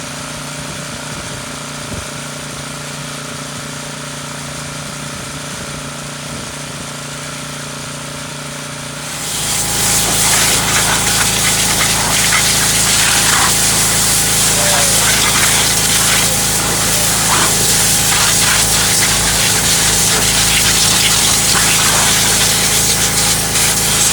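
Pressure washer's engine and pump running steadily, then about nine seconds in the spray starts: a loud, even hiss of high-pressure water that keeps on over the running engine.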